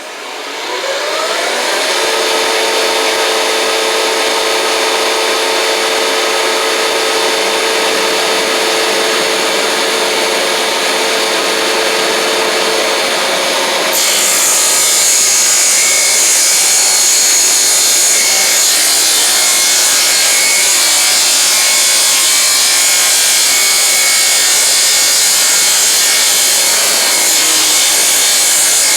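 Shopsmith table saw spinning up and running, then cutting through a glued-up wooden board to trim off its gapped edge. About halfway through, the sound jumps suddenly louder and harsher.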